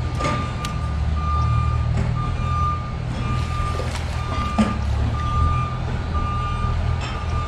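A vehicle's reversing alarm beeping steadily, about one beep a second, over a low, steady rumble, with a few sharp knocks.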